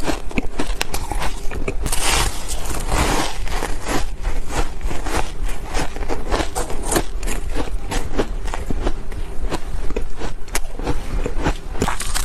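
Ice being chewed close to the microphone: a steady run of crisp crunches and crackles with no pauses.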